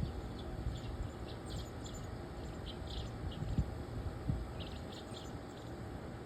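Scattered short bird chirps, a few at a time, over a steady low outdoor rumble, with two soft low thumps a little past halfway.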